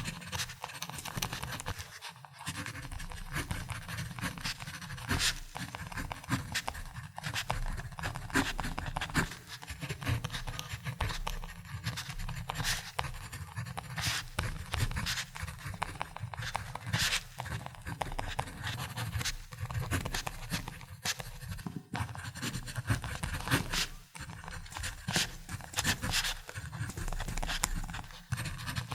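Ballpoint pen writing on paper: continuous scratchy strokes of the tip across the page, with brief pauses about two seconds in and near the end.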